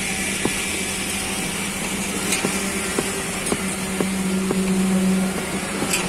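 Irregular knocks of a hammer on steel formwork fittings, over the steady hum of an engine that swells for a second or so past the middle.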